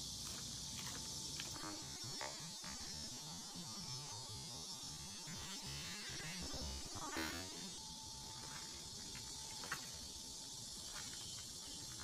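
A steady, high insect buzz, with a low, uneven rumble of wind on the microphone and a few scattered light clicks.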